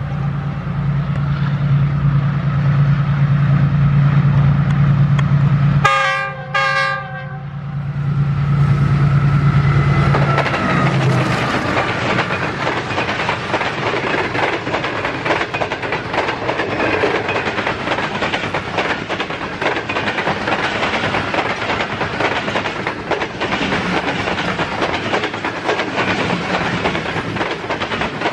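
An express passenger train's diesel locomotive approaches with a steady low engine drone and sounds two short horn blasts about six seconds in. From about ten seconds the passenger coaches pass close by, with the rumble of wheels on rail and a rapid clickety-clack over the rail joints.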